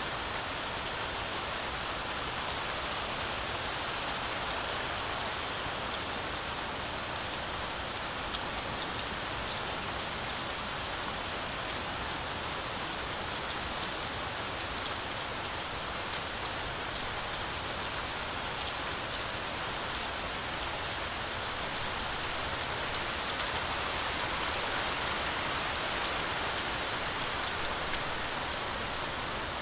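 Heavy rain falling steadily in a forest, a dense even hiss that swells a little for a few seconds near the end.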